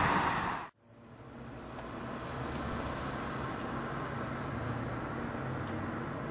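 Wind buffeting the microphone, cut off suddenly less than a second in. It is followed by a steady, quieter street ambience: a low hum of distant traffic.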